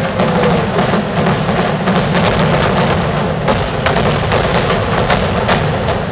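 Aerial firework shells bursting close overhead in a rapid barrage: a dense string of bangs and crackles that eases off near the end.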